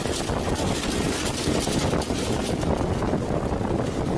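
Steady rush of aircraft engine noise and wind heard at an open jump door in flight.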